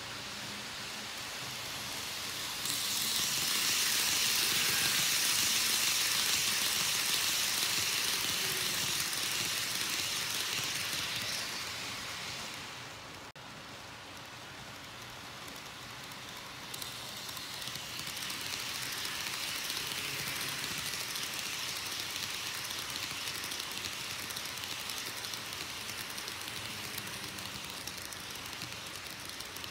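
N-gauge model Shinkansen (TOMIX 700 series) running on the track: a steady rushing hiss of wheels and motor. It swells about three seconds in, fades away around twelve seconds, then builds again from about seventeen seconds as the train comes round close by.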